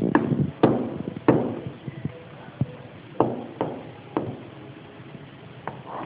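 About seven sharp, irregularly spaced knocks, each with a short ringing tail, as an African grey parrot clambers upside down along the ledge it hangs from. The loudest knocks fall in the first second and a half.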